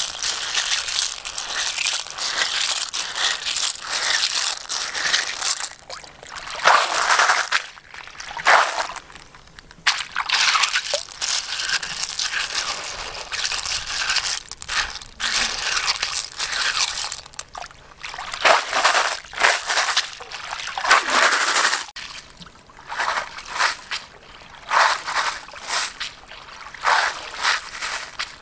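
Water sloshing and trickling as a woven basket of small freshwater clams is swirled and rinsed by hand in a river, with the shells rattling against each other in uneven surges.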